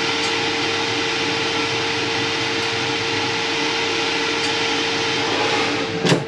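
Philips airfryer running steadily, its fan blowing with a constant hum as it heats up to 180 degrees, with a single knock near the end.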